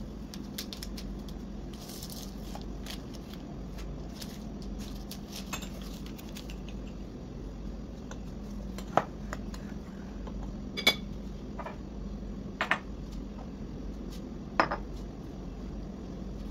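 A metal spoon against a glass mixing bowl: soft ticks and scrapes in the first half, then about five sharp clinks in the second half. A steady low hum sits underneath.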